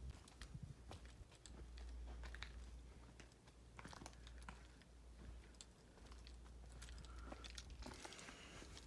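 Faint, scattered footsteps and scuffs on rock and grit, a few crunches and clicks spread out over several seconds.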